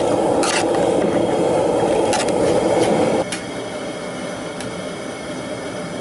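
Propane cooker's burner running full under a large aluminum pot at a rolling boil: a steady rushing noise, louder for the first three seconds and quieter after. A few sharp metal clinks come as the lid and pot are handled.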